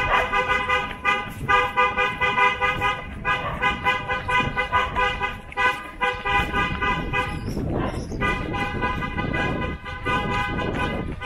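A car horn honking over and over in a long series of toots, stopping briefly about three-quarters of the way through.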